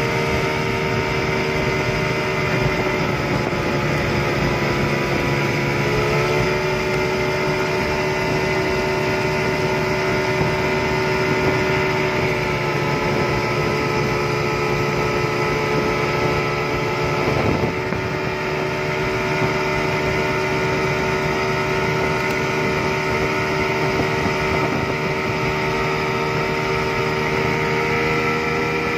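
Yamaha 200 hp two-stroke V6 outboard motor running flat out, a steady high engine note with small shifts in pitch and a brief dip a little past halfway, over the rush of the boat's wake and spray.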